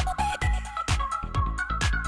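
Electronic dance music with a steady kick-drum beat of about two beats a second, crisp hi-hat ticks and a synth melody.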